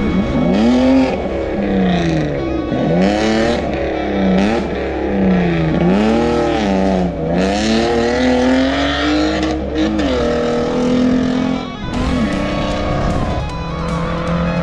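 Engine of an off-road 4x4 rally car revving hard, its pitch repeatedly climbing and dropping as the driver works the throttle and gears through a muddy hairpin and pulls away. Music comes in about twelve seconds in.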